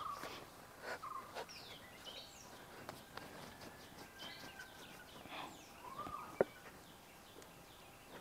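Faint bird calls, chickens among them, with short chirps scattered throughout and a louder call around six seconds in. A single sharp click is heard just after it.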